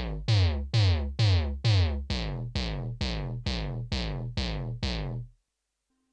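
Roland GAIA SH-01 synthesizer playing a preset patch: the same deep note repeated about twice a second. Each note starts bright and then darkens while its pitch slides down. The pattern stops about five seconds in.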